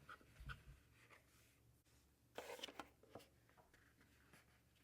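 Near silence: room tone with a few faint, brief clicks and rustles scattered through it.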